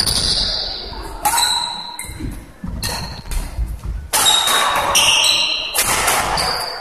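Badminton rally: rackets strike the shuttlecock about every second and a half, each a sharp crack that echoes round the hall. Short high squeaks of court shoes on the wooden floor come between the hits.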